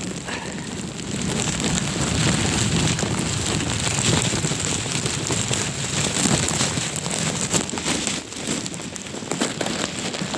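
Heavy rain pouring down while strong gusty wind buffets the microphone, with a brief lull about eight seconds in.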